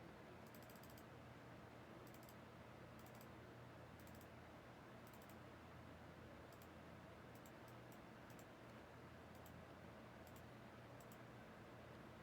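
Near silence with faint computer keyboard clicks in short irregular clusters over a low steady hum.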